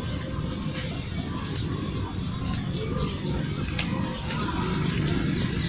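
Small birds chirping now and then over a steady low rumble and a constant high-pitched hiss of outdoor background.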